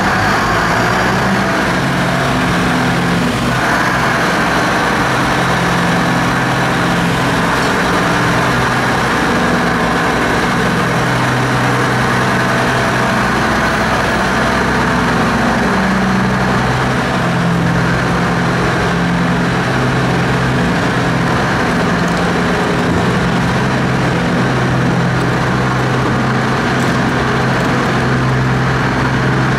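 Liebherr T 236 mining dump truck's diesel engine running steadily as the truck moves off, its deep engine note shifting slightly in pitch.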